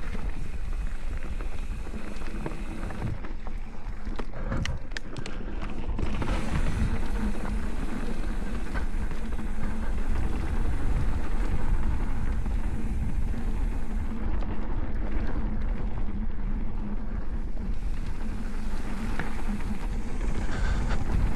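Mountain bike riding down a dirt trail: a steady rush of tyre and wind noise, with a cluster of sharp clacks and rattles about four to six seconds in as the bike goes over rough ground.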